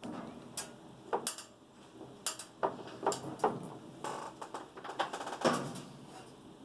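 Hands working on a GE washing machine's water control pump, with a string of irregular clicks, knocks and metallic clinks of tools and parts being handled, and a short scraping stretch past the middle.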